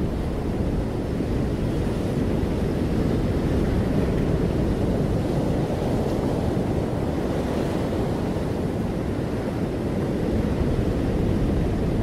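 Steady low rushing noise, swelling and easing gently, with no distinct events in it.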